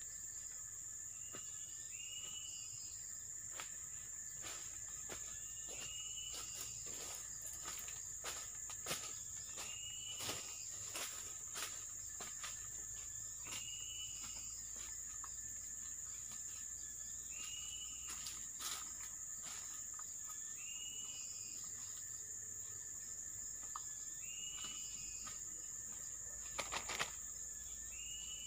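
Steady high-pitched drone of forest insects, with a short call repeating every two to three seconds and scattered small clicks and rustles.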